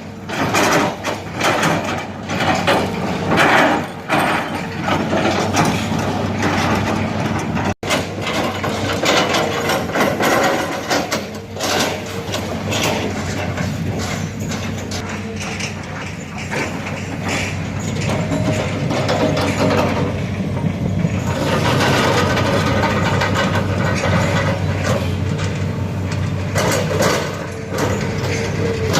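Hitachi hydraulic excavator's diesel engine running steadily under work, with frequent knocks and clanks in the first half.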